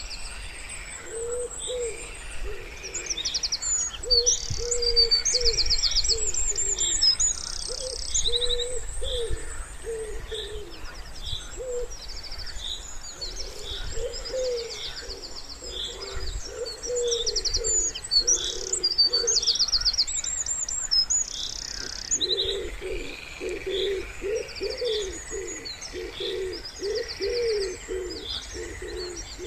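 Wood pigeon cooing in repeated low phrases, with small songbirds singing quick, high-pitched trills and chirps over it.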